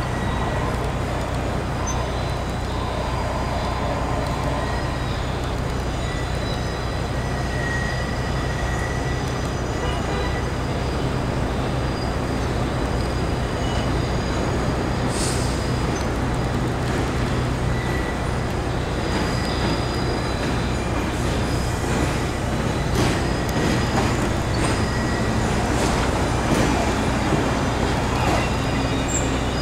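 New York City Subway R62A train moving slowly through a rail yard with vintage cars coupled in: a steady low rumble of wheels on track, with faint high squealing tones. From about halfway through comes a scatter of clicks and knocks.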